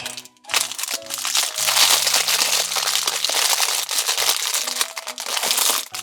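Plastic wrapping of an LOL Surprise toy being crinkled and pulled open by hand, a dense continuous crackle that starts about half a second in, over light background music.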